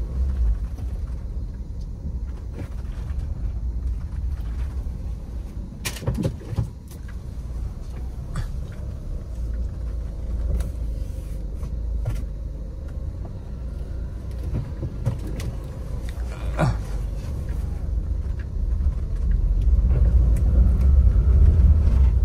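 Cabin sound of a 2015 Suzuki Ertiga GX on the move: a steady low rumble of engine and road, with a couple of sharp knocks and growing louder near the end. All four tyres are worn and due for replacement, and can give a drumming rumble.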